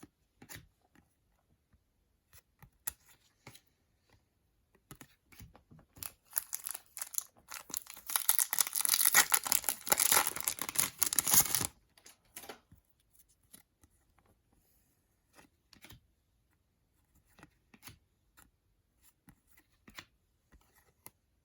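Wrapper of a trading-card pack being torn open and crinkled, a loud papery tearing and crackling for about six seconds in the middle, with soft clicks and taps of cards being handled before and after.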